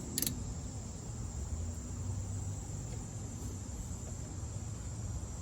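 Faint steady cricket trill over a low background hum, with a single sharp click just after the start.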